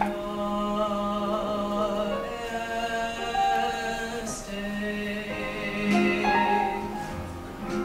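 Live song: singing in long held notes over instrumental accompaniment.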